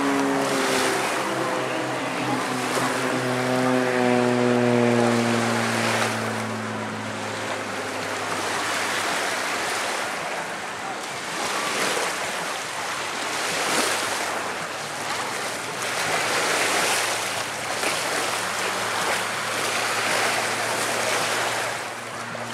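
Propeller aerobatic plane's engine droning, its pitch slowly falling over the first several seconds before it fades, over steady wind and surf noise.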